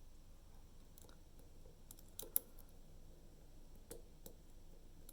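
A handful of small, sharp metal clicks from a hook pick working the pins inside a DOM IX Twinstar dimple lock's keyway, the loudest about two seconds in.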